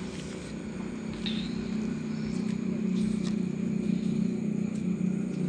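An engine running with a steady low drone, growing louder from about two seconds in.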